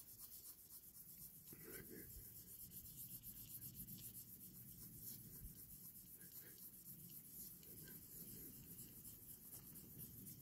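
Faint, quick back-and-forth rubbing of a nail buffer block over a diecast model's clear window unit, buffing its surface smooth and clear.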